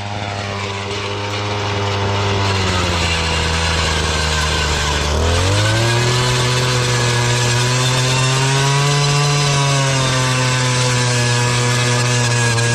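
Small gasoline engine running steadily under power, then revving up to a higher speed about five seconds in.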